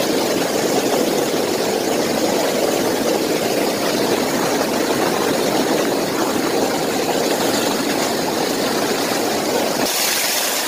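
Massage pool jets churning the water: a steady, loud rushing of bubbles. Just before the end it gives way abruptly to the brighter hiss and splash of a water spout pouring into the pool.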